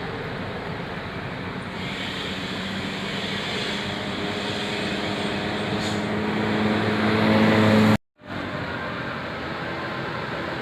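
Road traffic noise with a bus engine's drone growing steadily louder as it comes closer, breaking off suddenly about eight seconds in, after which steady traffic noise goes on.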